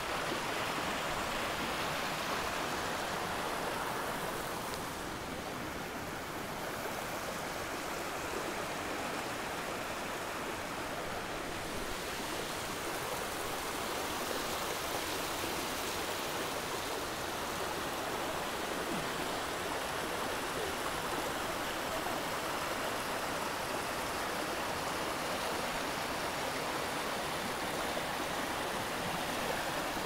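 Mountain creek babbling steadily over granite boulders in small cascades.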